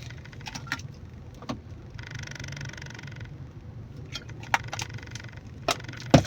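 Steady low hum of a car running, with scattered sharp clicks and snaps. Several stretches of a steady high buzz switch on and off abruptly, and two loud snaps come near the end.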